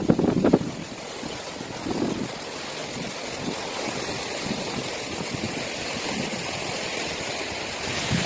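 Steady outdoor wash of sea wind and small waves lapping on the shore, with wind noise on the microphone and a few louder bursts near the start and about two seconds in.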